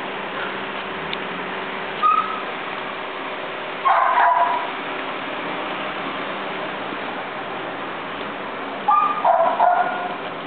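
A dog barking in three short bouts, about two, four and nine seconds in, the last two of several yaps each, over a steady background hiss.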